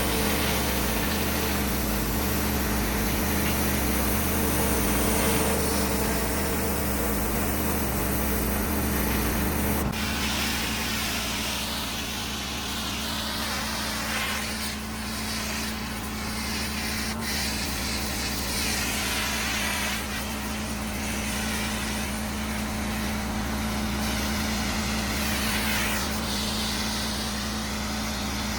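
Gas-engine pressure washer running steadily, with a water jet spraying and hissing on concrete. The sound changes abruptly about ten seconds in, with less low rumble and more hiss.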